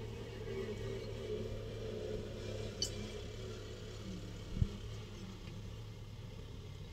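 Kubota tractor's diesel engine running steadily under load while it pulls a disc plough across the field, heard from some way off. It grows a little fainter as the tractor moves away.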